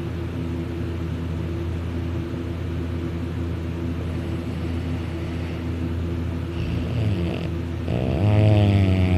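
A man snoring in his sleep: a long, steady low drone, then about eight seconds in a louder, higher, wavering snore.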